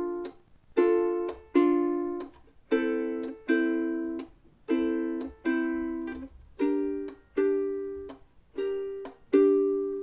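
Ukulele played fingerstyle: the strings are pinch-plucked together as a chord, then damped with a muting tap, so each chord rings briefly and cuts off short. About one chord a second, moving through D minor, A minor and G minor.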